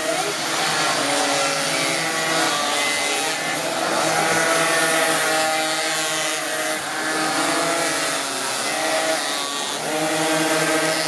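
A pack of two-stroke minimoto pocket bikes racing, several small engines buzzing at once at high revs. Their pitches rise and fall as the riders go through the corners.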